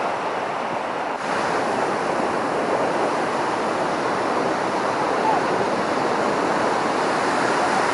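Ocean surf breaking on a sandy beach: a steady rush of waves, briefly broken about a second in.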